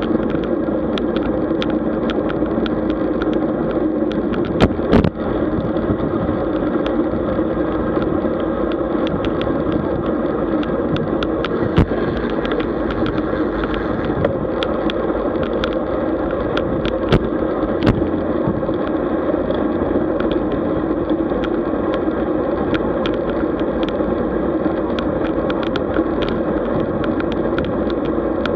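Steady wind and road noise of a road bicycle being ridden, dotted with frequent small clicks and rattles and a few sharper knocks, the first about five seconds in.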